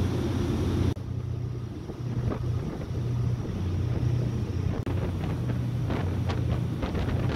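Twin MTU 16V 396 diesel engines of a high-speed catamaran ferry running at cruising speed, a steady low drone, with the rush of the water-jet wake. Wind buffets the microphone, in gusts over the second half.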